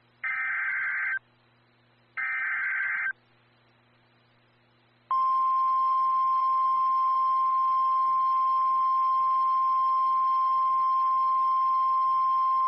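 NOAA Weather Radio alert signal announcing a severe thunderstorm warning. Two short bursts of SAME header data tones, a pause, then from about five seconds in the steady 1050 Hz warning alarm tone.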